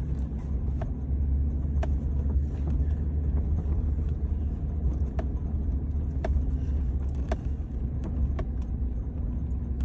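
Vehicle driving along with its engine running and a steady low rumble, with faint sharp ticks about once a second.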